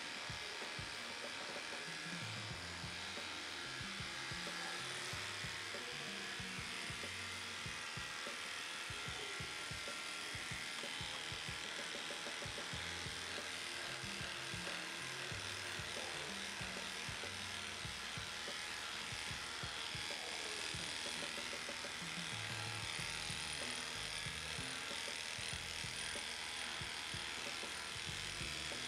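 Electric dog grooming clippers running steadily as they shave through a heavily matted coat, with background music under them.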